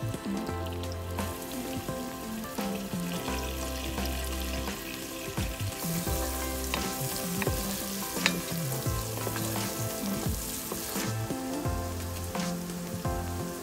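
Food frying in a pan, a steady sizzle that is strongest through the middle stretch, with occasional sharp clicks of a utensil stirring. Background music with stepping low notes plays underneath.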